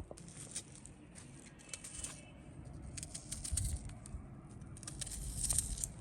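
Irregular light clinks and rattles of cooking utensils being handled, with low rumbling stretches about halfway through and again near the end.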